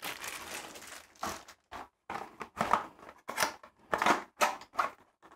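Clear plastic packaging bag crinkling as hands handle it: a soft rustle first, then a run of short crackles, about three a second.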